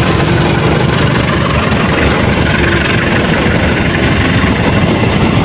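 GE diesel-electric locomotive engine running loud and steady, a deep rumble.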